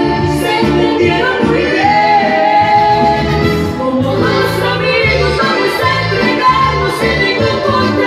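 Live band playing a Colombian música popular song over a steady bass beat, with singing.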